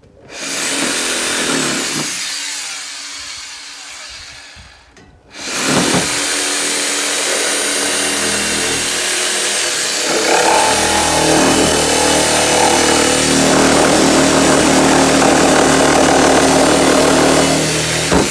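Reciprocating saw (Sawzall) cutting through the tin-and-timber roof. A first run fades out and stops about five seconds in, then the saw starts again and runs steadily to near the end, its motor tone growing heavier about halfway through.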